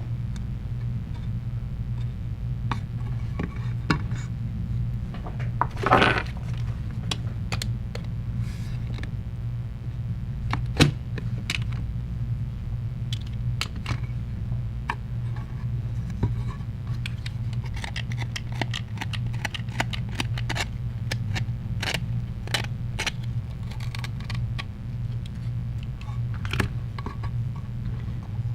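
Scattered light clicks and taps of small phone parts and tools being handled on a workbench during a phone screen repair, with a brief scrape about six seconds in and a sharper click near eleven seconds, over a steady low hum.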